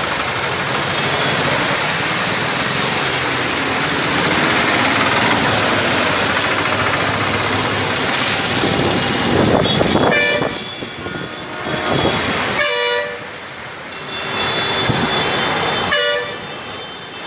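Motor traffic driving through deep floodwater on a road: a steady rush and splash of water thrown up by tyres, then vehicle horns honking several times in the second half.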